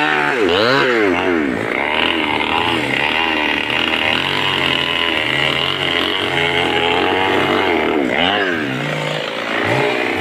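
Two-stroke chainsaw engine running loud, its speed rising and falling again and again, with quick up-and-down revs about a second in and again near the end.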